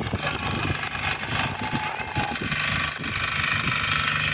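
Small petrol engine of a walk-behind barley reaper running steadily as it is pushed through the crop.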